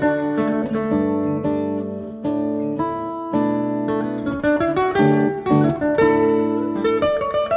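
Background music: an acoustic guitar playing a gentle plucked melody with sustained notes.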